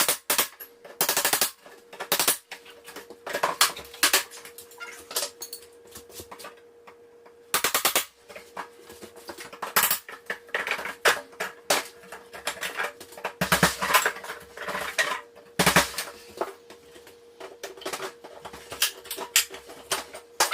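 Irregular knocks, scrapes and clattering of hand work pulling off window trim and freeing an old window from its opening, over a faint steady hum.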